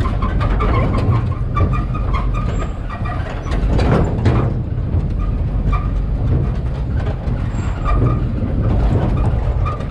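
Truck driving over a rough dirt road, heard from the open cargo bed: a steady rumble of engine and tyres, with the steel cargo-bed frame rattling and clanking continuously as it bounces.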